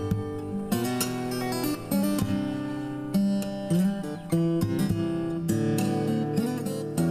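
Solo fingerstyle acoustic guitar playing a slow melodic piece: plucked melody notes ring over held bass notes, with a few sharper struck chords.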